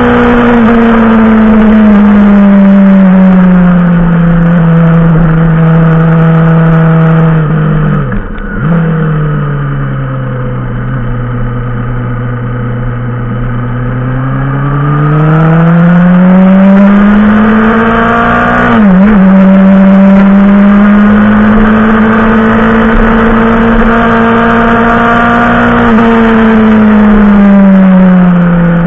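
Yamaha motorcycle engine pulling uphill, its note falling and rising with the throttle. There are two brief sharp breaks in the engine note, about eight and nineteen seconds in. It is quieter from about eight to fifteen seconds in.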